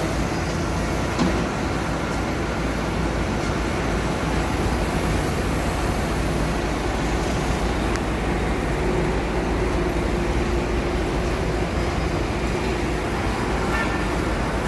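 Hitech-SH10T industrial textile-waste shredder running steadily under load, a continuous even mechanical din described as running smoothly.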